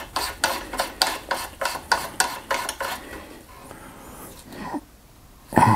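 AR-15 barrel nut being spun by hand onto the upper receiver's threads: a quick run of light metallic clicks, about five a second, fading into quieter scraping, then a thump near the end.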